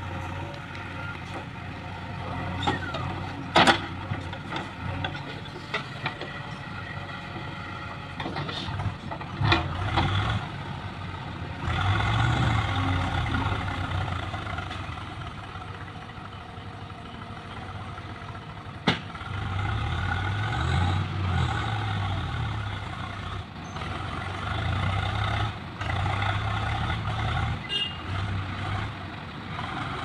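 JCB 3DX backhoe loader's diesel engine running, revving up in several surges as the backhoe digs and swings loads of soil. A few sharp knocks sound over it, the loudest a few seconds in and another near the middle.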